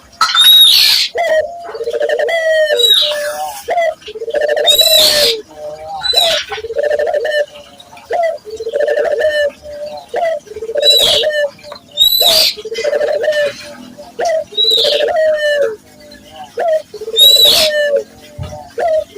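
Puter doves (Barbary doves) cooing over and over, a coo about every second, with sharper high chirps mixed in between.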